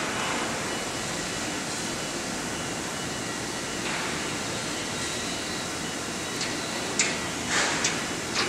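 Steady rushing noise of factory machinery around a steel coil slitting line, with a few short sharp knocks about seven seconds in.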